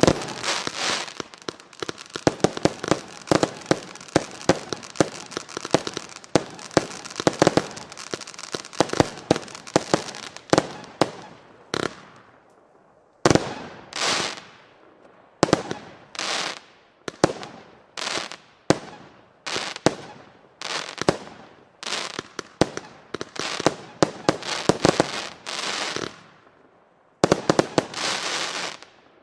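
A 57-shot consumer fireworks cake firing. For the first twelve seconds or so it is a fast, dense barrage of launches and bursts. After a brief pause the shots come singly, about one a second, each burst followed by about half a second of crackle, until the cake finishes shortly before the end.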